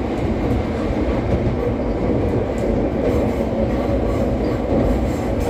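Steady rumble of a local passenger train running along the line, heard from inside the carriage, with a few faint clicks.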